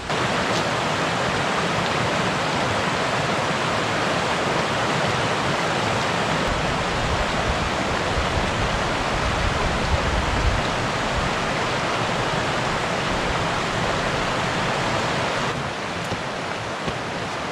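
Steady rushing of a small, rocky mountain trout stream over boulders and riffles, running a little high after recent rain. A low rumble swells in the middle, and the rush is a little quieter for the last two seconds.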